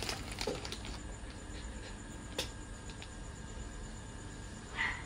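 Top-load washing machine just after starting, in its load-sensing phase before it takes in water: a faint low hum, one sharp click a little over two seconds in, and a short high tone near the end.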